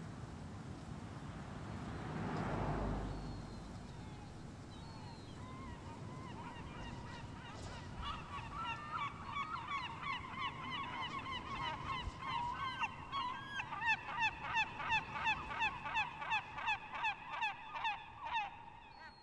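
A soft whooshing swell about three seconds in, then from about eight seconds in a long run of short honking calls, about two a second, that grow louder and die away near the end.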